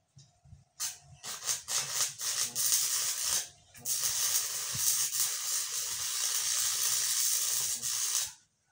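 Electric arc welding: a few short bursts of hiss as the arc is struck and broken, then a steady hiss of about four seconds that cuts off near the end.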